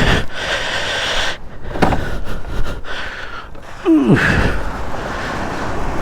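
Steady noise of a moving vehicle with wind buffeting the microphone, and a short falling tone about four seconds in.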